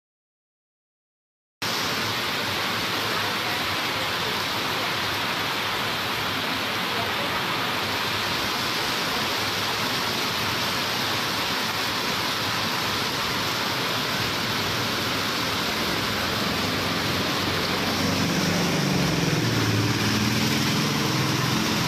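Heavy rain pouring onto a flooded street, a steady hiss that starts suddenly about a second and a half in. Near the end the engine of an auto-rickshaw joins in as it drives through the floodwater.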